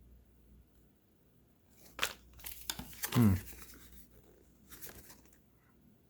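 Paper or card packaging being handled and crinkled: a sharp crackle about two seconds in, more rustling after it, and a smaller rustle near the end. A short falling hum from a person's voice comes in the middle.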